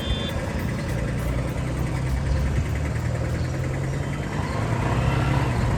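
Car engine running on the road, a steady low drone that shifts slightly in pitch as the speed changes.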